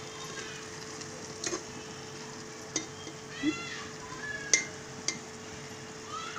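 A steel spoon stirring and scraping spiced mutton masala frying in an aluminium pressure cooker, knocking against the pot every second or so over a faint steady sizzle. A short squeaky chirp is heard about three and a half seconds in.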